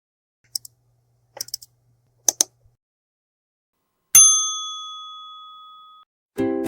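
A few short, faint clicks, then a single bell ding about four seconds in that rings out and fades over about two seconds. Plucked-string music starts just before the end.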